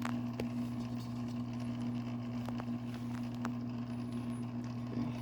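Steady low electrical hum, with a few faint light clicks and knocks.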